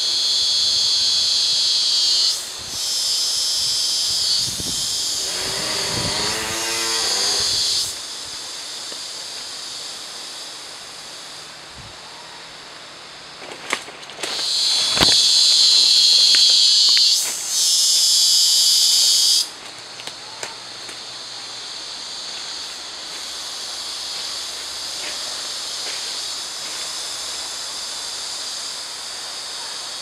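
Rainforest insects buzzing in a loud, shrill drone that switches on and off abruptly in long stretches, fainter in the last third. About five to seven seconds in, a lower wavering call sounds, and a few sharp knocks come about halfway through.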